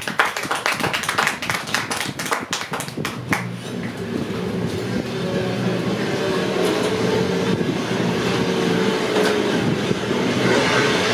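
A quick run of sharp taps for the first three seconds or so, then the steady drone of motorcycle engines running, which accompanies the puppet motorcycle race.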